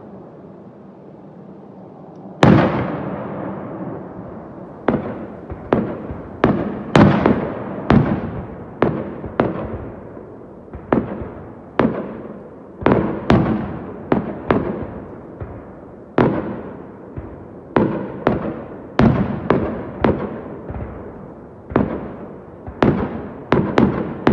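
Aerial firework shells bursting: a fading rumble, then a loud bang about two seconds in and a quick volley of booms, one every half second to a second, each trailing off before the next.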